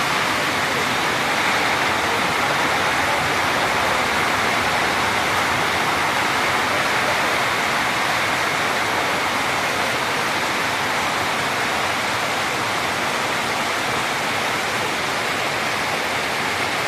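Heavy rain falling steadily, an even rushing hiss with no breaks.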